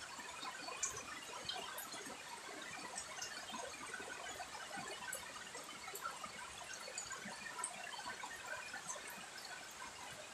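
Steady rain falling: a dense, even patter of drops with scattered louder drips.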